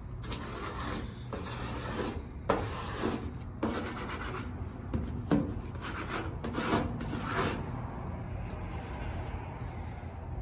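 Scraping or rubbing strokes across the paint-remover-coated paint of a car's quarter panel: about eight rough strokes, then quieter near the end. The OEM e-coat under them has not softened.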